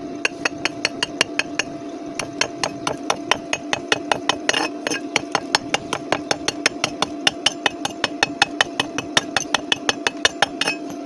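Hammer tapping rapidly on steel, about four to five strikes a second, typical of chipping slag off a stick weld, over a steady hum.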